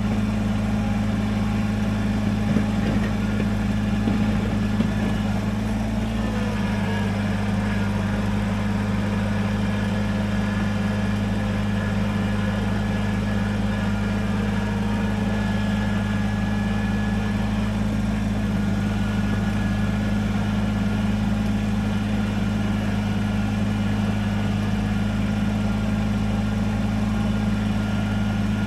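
Kubota BX23S compact tractor's three-cylinder diesel engine running at a steady speed.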